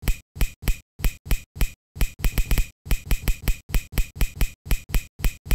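Logo-intro sound effect: a quick, even run of short, sharp clicks, about four a second.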